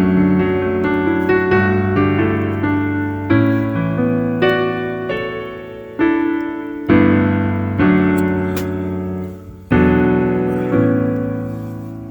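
Background music: a piano playing slow sustained chords, each struck and left to ring, fading out near the end.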